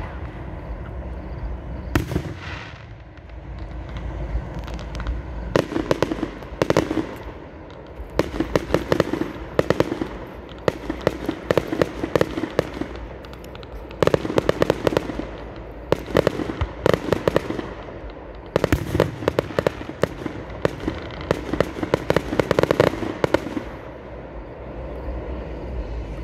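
Fireworks going off in rapid volleys of sharp pops and crackles. The volleys come in several clusters a few seconds long, with short lulls between them.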